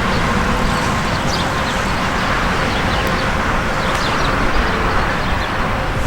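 Steady noise of highway traffic, with faint short high chirps scattered through it.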